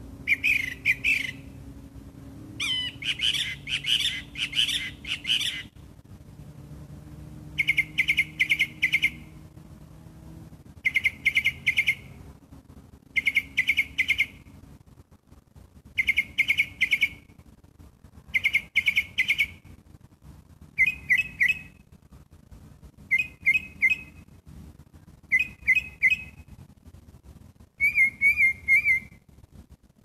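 A songbird singing before dawn: short phrases of three or four quick whistled notes, repeated about every two to three seconds, with the phrase changing a few times. The uploader takes the singer for a catbird.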